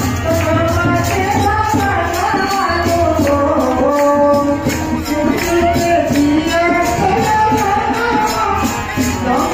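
A song plays with singing over a steady percussion beat.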